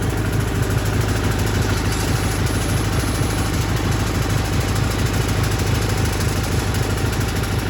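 Wood-Mizer LT40 portable band sawmill running steadily under power, its band blade sawing a cherry log into slabs.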